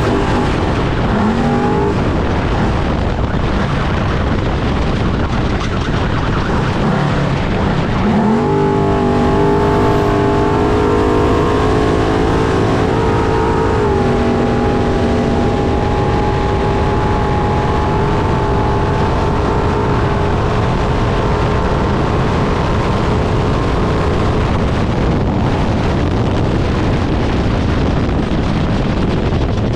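Trophy truck heard from on board while racing: its engine runs hard, the pitch climbing about a second in and again around eight seconds, stepping up once more, then holding steady. A constant heavy rumble runs underneath, and the engine note sinks into it over the last few seconds.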